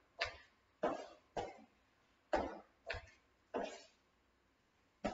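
A woman's short, forceful breaths huffed out during burpees. There are about seven sharp exhalations, roughly every half second, with a pause before the last.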